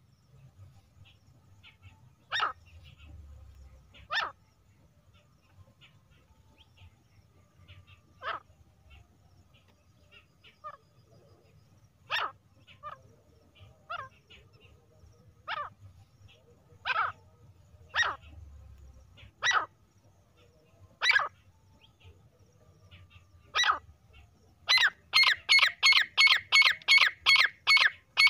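Female grey francolin calling: short, sharp single notes spaced a second to a few seconds apart. Near the end comes a fast, even run of about a dozen notes, three or four a second.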